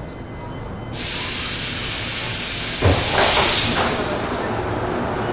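Compressed air hissing from an AS-14 metro train as it comes to a stop at a station. A steady hiss starts suddenly about a second in; near the middle a low clunk is followed by a louder gush of air lasting under a second, which then settles back into a steadier hiss.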